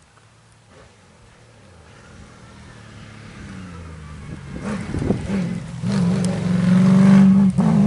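Triumph TR7 rally car at full speed, its engine growing steadily louder from faint to a loud, high-revving note as it comes close. The note dips briefly near the end and then picks up again.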